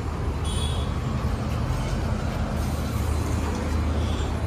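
Diesel truck engine running steadily with an even low hum.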